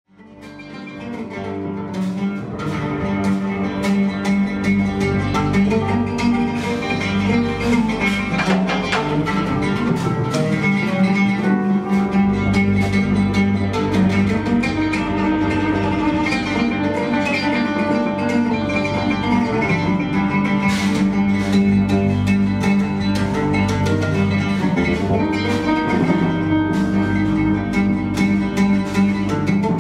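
Live instrumental ensemble music fading in over the first couple of seconds: plucked guitar over held low electric-bass notes.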